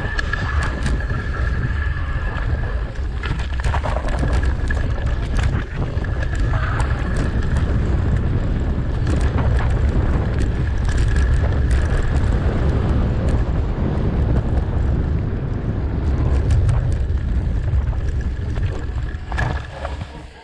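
Wind buffeting the microphone on a bicycle riding fast along a dirt trail, with tyre rumble and frequent knocks and rattles of the bike over bumps. A thin steady high whine runs through most of it, and the wind noise falls away near the end.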